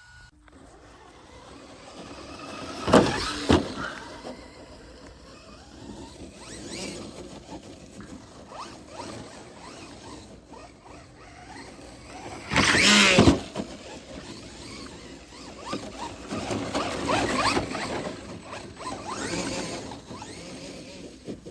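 Brushless electric motor of a 1/10-scale RC rally car whining and changing pitch as the car is driven around, with loud close passes about three seconds in and again near thirteen seconds.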